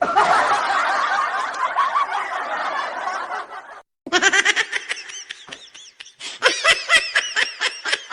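Laughter sound effects: first several people laughing together, then, after a brief break, one person's quick snickering laugh in rapid, evenly spaced bursts.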